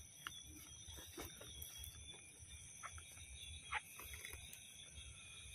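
Faint, scattered rustles and crackles of footsteps through dry grass, one a little louder near the end, over a steady high chirring of night insects.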